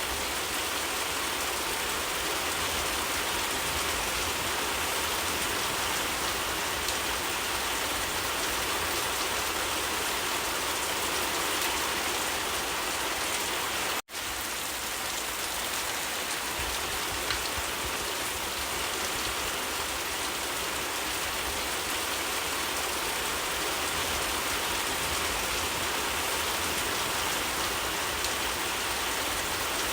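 Steady rain falling, an even, dense hiss of drops on surfaces, which cuts out for an instant about halfway through.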